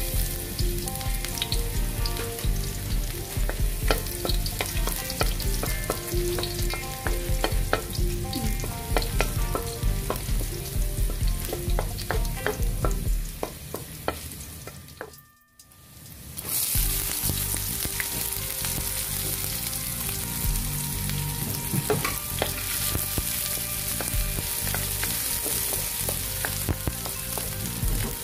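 Minced garlic sizzling in hot oil in a wok as it is sautéed toward light brown, with short scrapes and taps of a wooden spatula against the pan. The sound drops out briefly about halfway, then comes back as a brighter, steadier sizzle with chopped onion being stirred in the oil.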